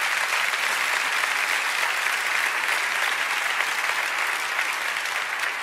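A large congregation applauding, a dense steady clapping that eases off slightly near the end.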